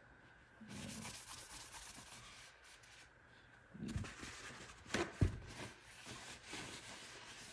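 Paper towel rubbing and wiping over a shotgun's metal receiver, a soft scuffing sound, with a couple of light knocks from handling the gun about four and five seconds in.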